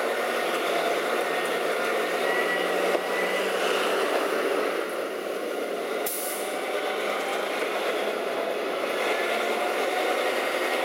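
Roll-off truck's diesel engine running steadily at the curb with its hoist raised and a dumpster tilted up on the frame. A short air hiss comes about six seconds in.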